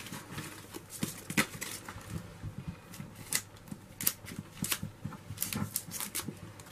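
Paper and cardstock being handled: irregular rustles and light clicks as die-cut ephemera cards are picked up and set down on a sheet of scrapbook paper.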